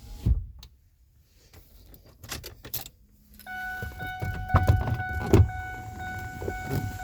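A thump right at the start, then keys jingling and rattling, then a steady electronic warning tone from the car that comes on about three and a half seconds in and keeps sounding, with two heavy knocks over it.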